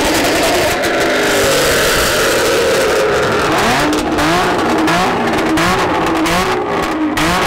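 Car engine revved hard: it runs high for the first few seconds, then is blipped again and again, its pitch climbing in quick rises about once every three-quarters of a second.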